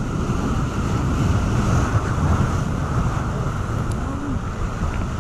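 Surf breaking and washing over the rocks of a jetty, with wind rumbling on the microphone.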